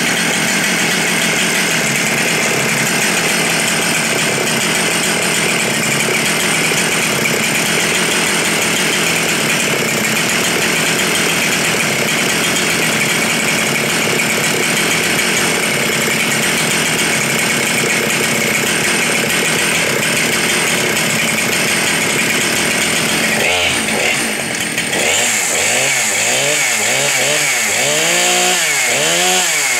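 Husqvarna 394 XP 94 cc two-stroke chainsaw running steadily at high revs, then revved up and down about once a second over the last six seconds.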